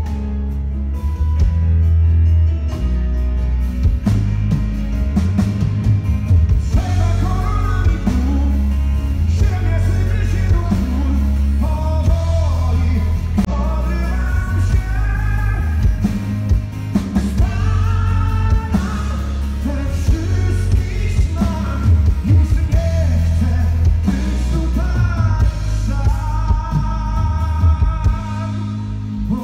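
Rock song with a strong bass line: the band plays alone at first, then a male voice starts singing about seven seconds in and carries on to the end.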